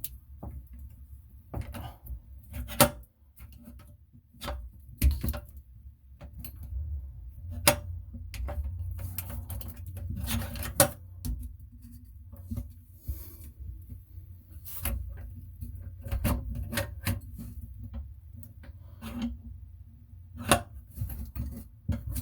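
Irregular clicks, taps and knocks of hands working small metal parts of a pop-up drain linkage under a bathroom sink while its pivot pin is tightened, with a few louder knocks scattered through.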